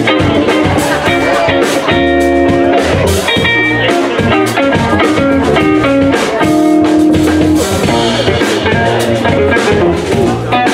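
A live small band playing an instrumental swing-style passage: electric guitar, upright double bass and drum kit, with a steady beat of drum and cymbal strikes under held guitar chords and notes.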